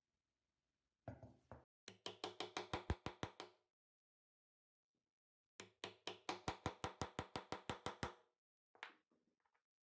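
Quick, evenly spaced hammer taps on a small metal punch held on the pivot of a pair of old steel scissors, about five or six strikes a second. There are two runs of about a dozen taps each, with a pause of about two seconds between them.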